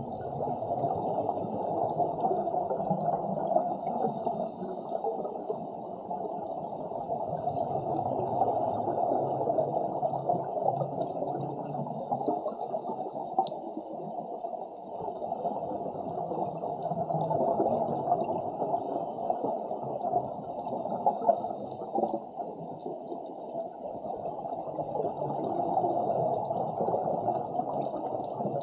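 Muffled underwater bubbling and water noise that swells and eases every several seconds. A short, faint hiss comes about every eight or nine seconds, which fits a scuba diver breathing through a regulator.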